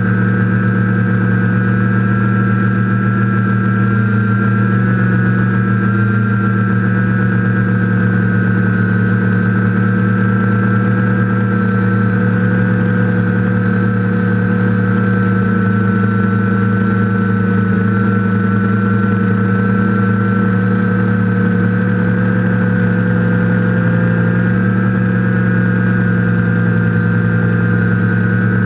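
TBS Discovery quadcopter's four electric motors and propellers whining steadily in flight, heard from the GoPro mounted on the frame, their pitch wavering slightly as the throttle shifts.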